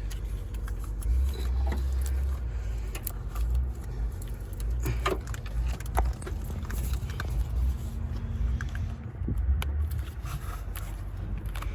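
Scattered small clicks, clinks and scrapes of hands and tools working loose wiring and connectors in a car's engine bay, over a steady low rumble.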